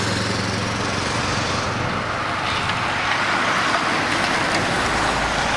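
Road noise from passing vehicles: a motor's hum fades out in the first second or two, leaving a steady rush of tyre and wind noise.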